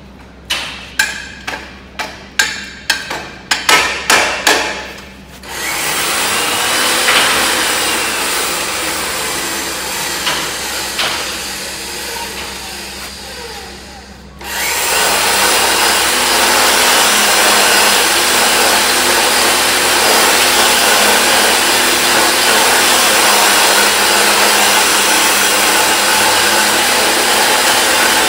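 About ten sharp metal knocks at a pipe threading machine, coming faster toward the end. Then the machine's electric motor runs steadily, turning the pipe. It cuts out briefly about halfway through and starts again, running louder and steady.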